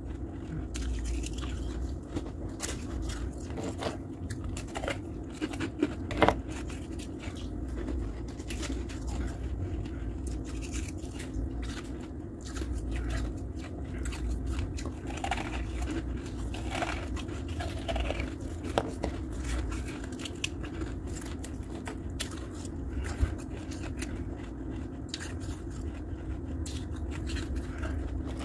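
Close-up biting and chewing of soft, snowy freezer-frost ice: irregular crisp crunches throughout, with two sharper cracks about six seconds in and near the end, over a steady low hum.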